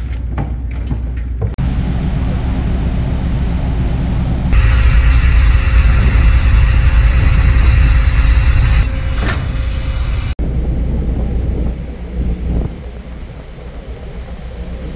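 Low rumble of the Blue Pearl car ferry's machinery. For about four seconds in the middle it gets louder, with a mechanical run of steady whining tones from the deck mooring winch working its rope lines. Near the end it gives way to wind and churning water as the ferry pulls away from the quay.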